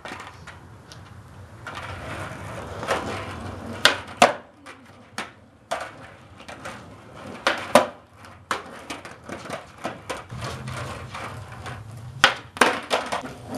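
Skateboard wheels rolling on concrete, with sharp wooden clacks of the tail popping and the board landing as flatground tricks are tried: a rolling hiss early, then single knocks about four and eight seconds in and a quick cluster near the end.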